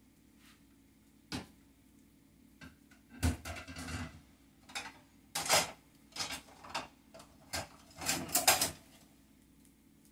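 Kitchen utensils clattering and knocking as a spatula is picked out from among them: a single knock a little over a second in, then irregular runs of clinks and clatters, loudest about halfway through and near the end. A low steady hum runs underneath.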